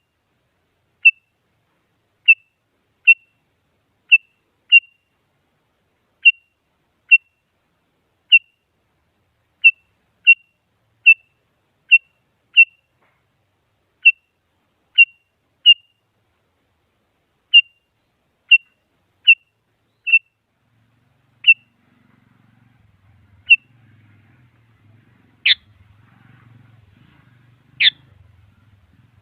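Sooty-headed bulbul (kutilang) calling: short, sharp single chirps at one pitch about once a second, then near the end three longer sweeping calls.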